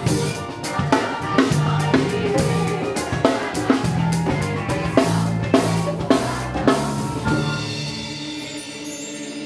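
Live band playing a worship song: drum kit with bass drum and snare hits over bass and chords. The drums stop about seven seconds in, leaving held notes ringing.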